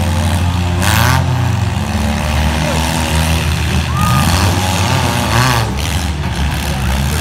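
Four-cylinder demolition derby cars running hard, their engines revving up and down together, with two brief louder noisy bursts, about a second in and about five and a half seconds in.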